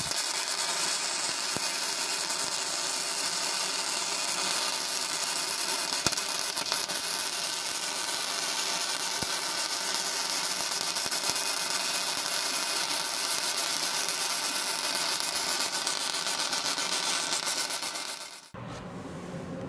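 Harbor Freight Titanium 170 wire-feed welder laying one long continuous bead: the arc's steady crackle and hiss, which cuts off suddenly about a second before the end.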